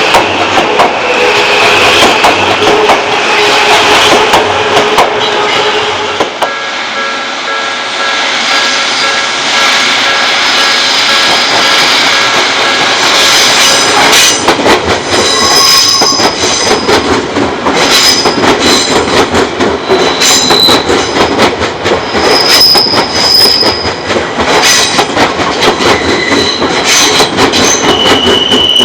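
Odakyu Odawara Line train running slowly past a level crossing, its wheels squealing in high whines that come and go through the second half, with rapid clacking of the wheels over the rail joints.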